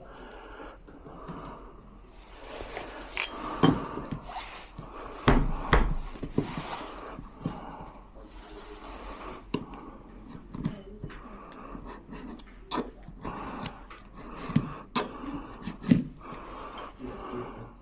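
Irregular metallic clicks, clinks and knocks of hand tools and door-lock hardware being handled and fitted, with the sharpest knocks a few seconds in and again near the end.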